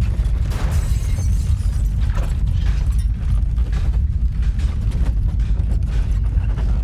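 Simulated earthquake rumble: a deep, steady rumble with scattered rattling and creaking over it.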